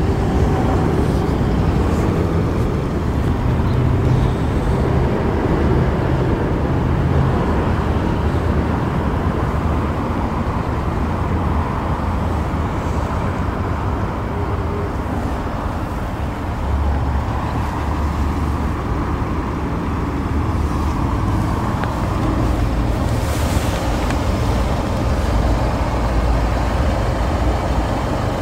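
Range Rover Velar's diesel engine idling steadily, a continuous low rumble, with a brief noise about 23 seconds in.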